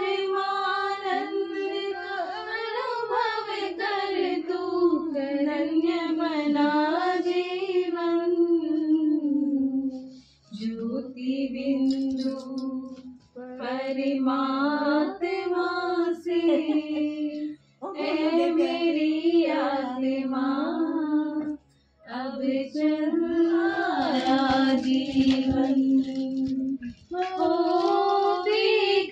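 A woman singing a bhajan (Hindu devotional song) solo and unaccompanied, in long melodic phrases with short breaks for breath between them.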